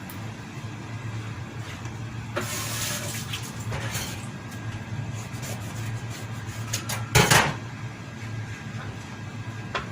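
Kitchen handling sounds: milk and water being poured from a plastic bag into a pot, with a few clicks and a sharp clatter about seven seconds in.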